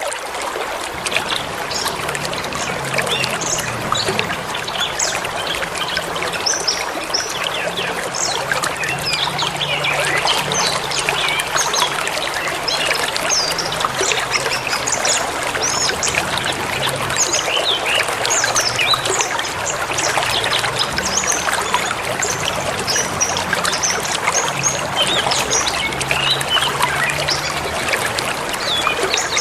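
A forest river running in a steady rush and babble, with many small birds chirping and whistling over it throughout.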